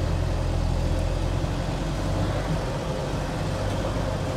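Land Rover Series III with portal axles crawling over rough off-road ground, its engine running steadily at low revs, with a slight change in engine note about two and a half seconds in.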